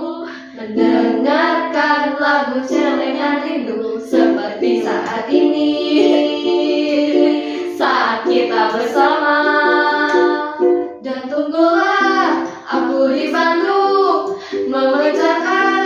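Several young women singing an Indonesian pop song together, with a strummed ukulele accompanying them.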